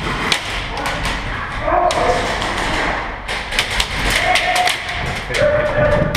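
Airsoft guns firing in scattered single snaps and short quick strings, irregularly spaced, with a denser cluster of shots about halfway through.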